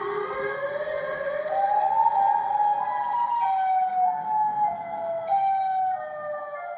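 Chicago's emergency warning siren wailing, several tones together: the pitch rises over the first two seconds or so, then falls off in a series of downward steps.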